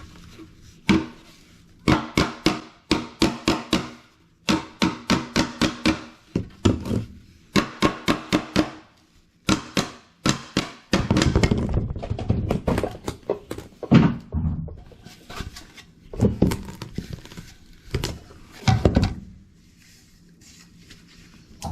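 Bursts of rapid hand-tool strokes, about four a second, each carrying a ringing tone, followed by a denser stretch and a few heavier knocks. The last second or two is quiet.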